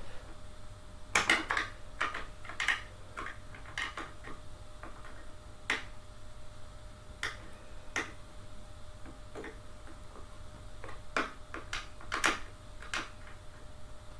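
Irregular clicks and light knocks of hard chair parts being handled and fitted during gaming-chair assembly, loudest a little after one second and again near the end.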